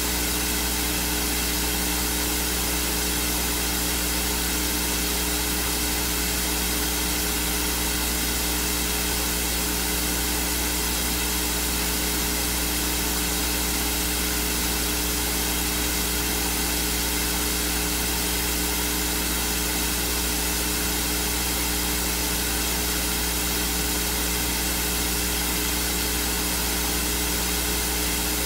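Steady hiss with a low hum and a few constant tones beneath it, never changing. This is electrical noise on the recording, and no speech comes through it.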